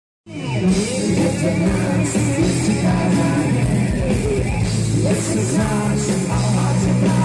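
Live heavy metal band playing, with electric guitars, bass and drums under singing. The sound cuts in after a brief dropout at the very start.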